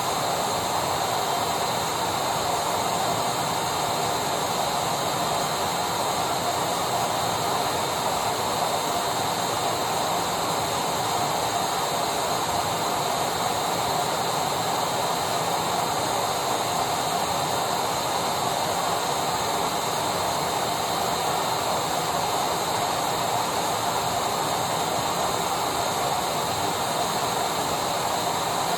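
Vacuum cleaner running steadily: an even rushing motor noise with a faint high whine, unchanging in level.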